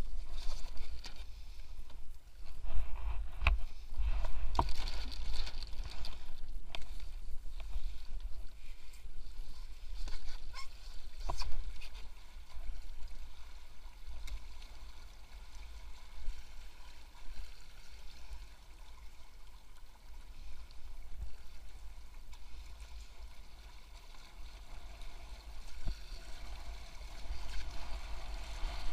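Water rushing and splashing along the hulls of an A-Class catamaran under way, with wind buffeting the microphone. A few sharp knocks come from the boat's gear, mostly in the first twelve seconds.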